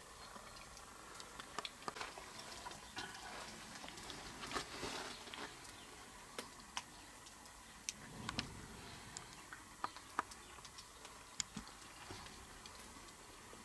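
Faint, scattered small clicks and ticks with brief light rustling.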